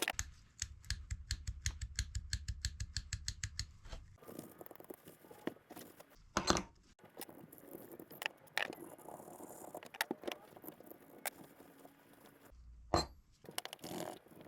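Clicks and clinks of small metal parts and tools on a Penn Monofil fishing reel being taken apart. It opens with a rapid, even clicking, about seven a second, for roughly four seconds, then gives way to scattered clicks with a louder knock twice.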